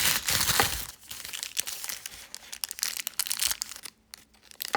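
Packaging being handled and unwrapped: dense crinkling and rustling in the first second, then scattered lighter crinkles and small clicks.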